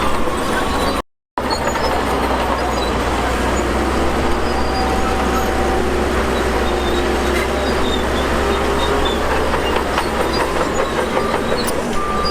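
Bulldozer's diesel engine running steadily under load, with its steel crawler tracks clanking. The sound cuts out for a moment about a second in.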